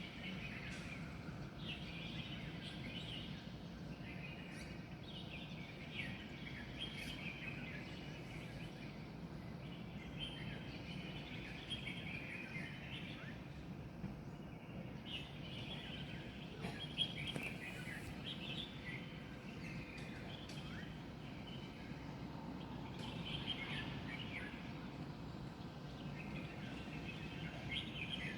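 Many small wild birds chirping and twittering in a dawn chorus, in overlapping bursts every second or two, over a steady low hum of city background noise.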